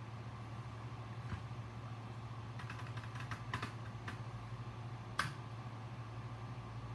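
Hands handling a metal-cased power supply on a silicone bench mat: scattered light clicks and taps, a quick run of them around the middle, and one sharper knock about five seconds in. A steady low hum runs underneath.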